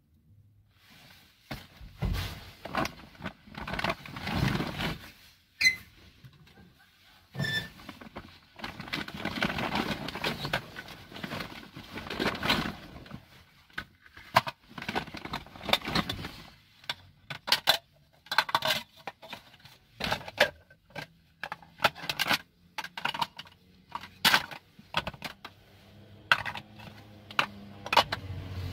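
Rummaging through bags and salvaged items: rustling plastic bags and fabric, with many scattered clicks, knocks and scrapes as objects, including a stainless steel container, are shifted and lifted.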